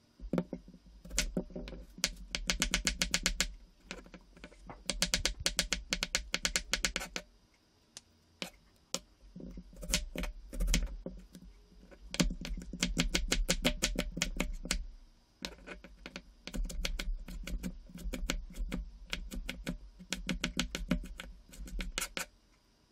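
Chef's knife rapidly chopping on a wooden cutting board while mincing vegetables: several quick runs of taps a few seconds long, with a few single knocks and short pauses between them.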